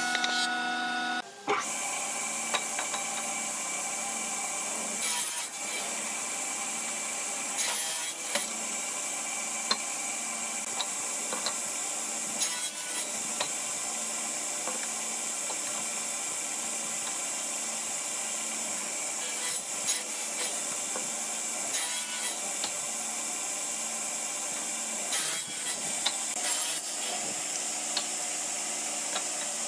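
A woodworking thickness planer hums for about the first second, then cuts off. After that a sliding-table saw runs steadily with a high whine, and short, louder bursts come every few seconds.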